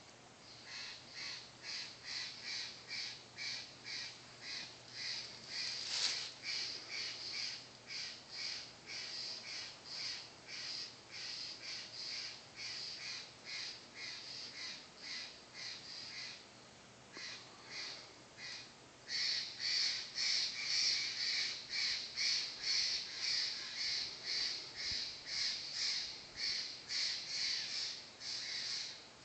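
A bird calling in a long, even series of short high-pitched notes, about three a second. The series breaks off for a couple of seconds after about sixteen seconds and then resumes louder.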